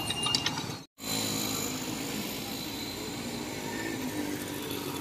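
Steady roadside traffic hum, with a few light clicks near the start; the sound cuts out completely for a moment about a second in, then the traffic hum resumes.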